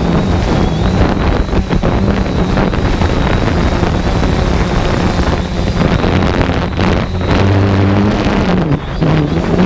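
Remote-controlled aircraft's motor and propellers running in flight, a steady hum that dips in pitch and recovers near the end, with heavy wind noise on the microphone.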